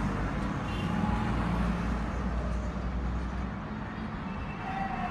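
Street traffic noise from a phone recording, with a car's engine rumbling close by, strongest in the first few seconds.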